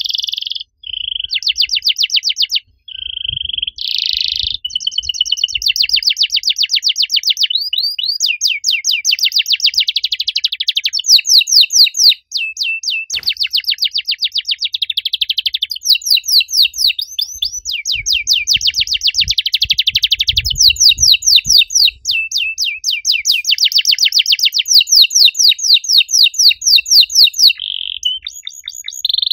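Domestic canary singing a long, loud song of rapid trills and rolls, switching from one fast-repeated note to another every second or two, with only brief breaks.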